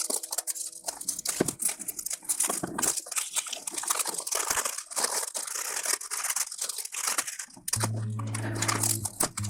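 Toy packaging being unpacked by hand: irregular crinkling, rustling and tearing throughout. Background music is heard in the first second and again near the end.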